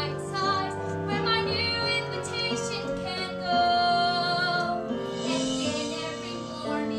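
Music with young voices singing over an instrumental accompaniment.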